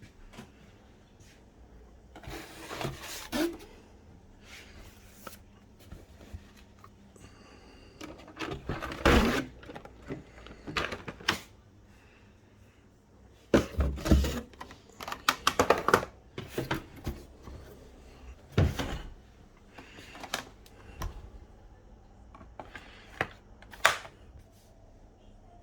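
Plastic parts and packaging of a Fluval 407 canister filter being handled during unboxing: irregular clicks, knocks and short rustling scrapes, busiest in the middle.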